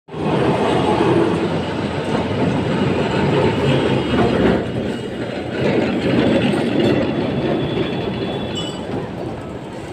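Kolkata electric tram rolling along its street rails with a loud rumble of wheels on track, slowly fading as it moves off. A faint high wheel squeal comes near the end.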